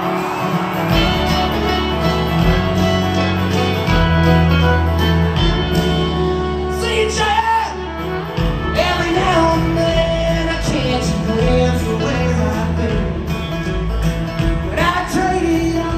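Live country band playing, recorded from the crowd: drums, bass and guitar with a man singing.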